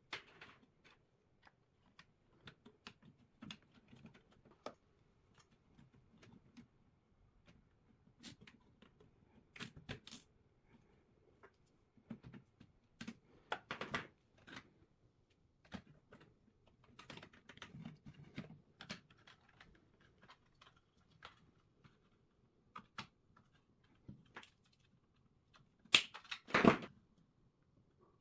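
Scattered light clicks, taps and rustles of hands working plastic parts, fuel tubing and wiring on a 3D-printed RC car chassis. A short, louder clatter comes near the end.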